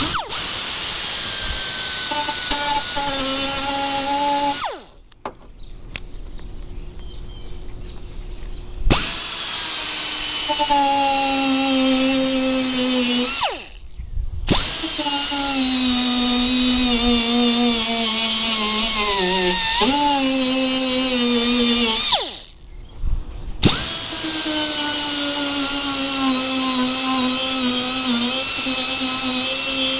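Pneumatic right-angle die grinder with a small sanding disc, whining at high speed over an air hiss as it grinds paint off the steel of a car trunk lid down to bare metal. It runs in four stretches, stopping briefly about five seconds in, near the middle and about two-thirds of the way through, and its pitch sags whenever it bears down on the metal.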